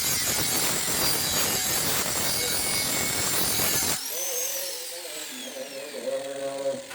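Angle grinder grinding steel: a loud, steady grinding noise with a faint motor whine. About four seconds in it cuts off abruptly. A descending whistle-like glide follows, over a pitched, wavering voice-like or musical sound.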